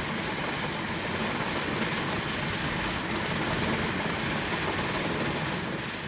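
Steady mechanical running noise of a steam ploughing engine as its cable drum pays out the wire rope around the pulley under the engine.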